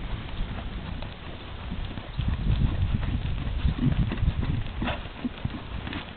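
Horse trotting on a sand arena, its hooves thudding dully. The hoofbeats grow loudest from about two to four seconds in as the horse passes close by.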